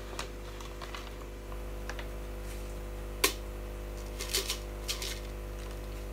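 Teaspoon scooping pool salt out of a bag and tipping it into a container: scattered gritty scrapes and light clicks, with one sharper click about three seconds in, over a steady hum.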